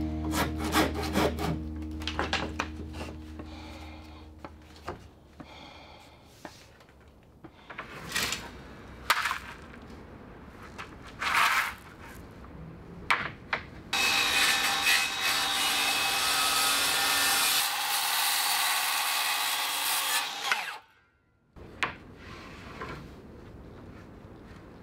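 Woodworking on oak lumber: a few sharp knocks of wood on wood, then about six seconds of loud, harsh sawing or rubbing of wood that stops abruptly.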